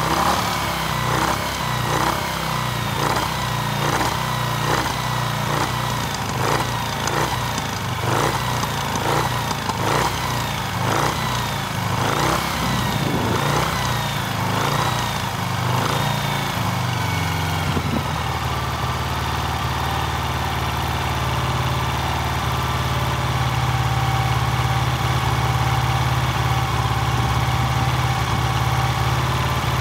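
Norton Dominator parallel-twin engine running, with a rhythmic surge repeating a little faster than once a second for the first seventeen seconds or so, then settling into a steady, even idle.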